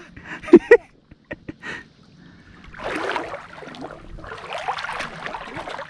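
Water splashing in two rough stretches, the second longer, after a few light clicks.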